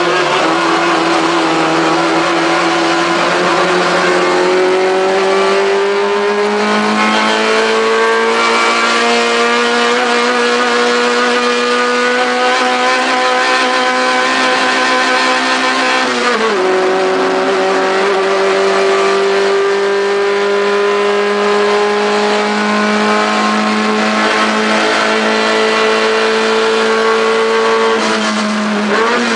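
In-car sound of a Fiat 128 race car's four-cylinder engine under full throttle, its note climbing slowly through the gear. About halfway through the pitch drops sharply at a quick upshift and starts climbing again, then near the end it falls and wavers as the driver lifts off.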